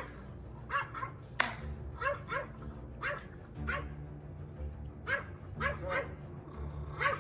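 A dog barking repeatedly: about a dozen short, sharp barks at irregular intervals.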